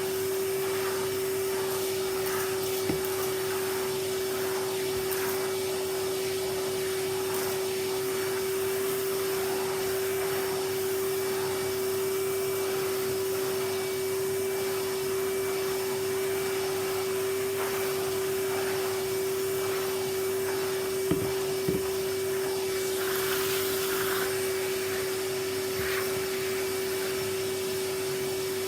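Vacuum cleaner running steadily, a constant hum at one pitch with a rush of air. A few short knocks break in, two close together about two-thirds of the way through.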